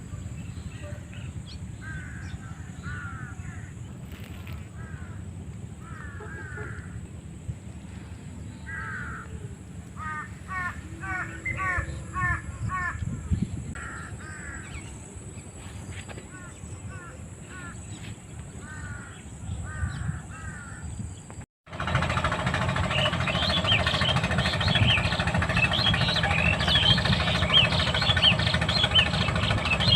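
Birds calling in short repeated series over a low steady rumble. About two-thirds of the way through, the sound cuts out for a moment, then louder, dense bird chirping begins over a stronger low rumble.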